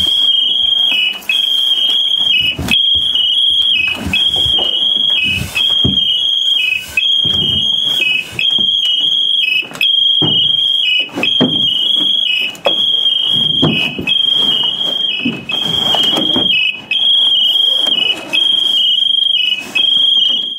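Loud high-pitched electronic alarm sounding continuously, a two-pitch tone repeating in cycles of about a second and a half with short breaks. Irregular knocks and scrapes of gear sound beneath it, and the sound cuts off abruptly at the end.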